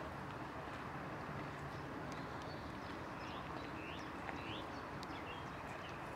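A small bird gives a few short rising chirps in the middle, over a steady low outdoor rumble and hiss.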